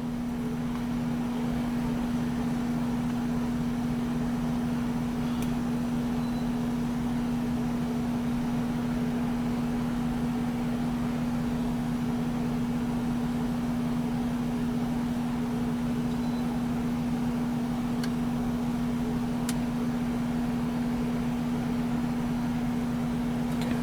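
Steady electric-motor hum with one constant low tone, from a 2013 BMW 320i with the ignition on and the engine off, as its electric water pump and heater blower run for the cooling-system bleed procedure. The hum swells slightly over the first couple of seconds and then holds level.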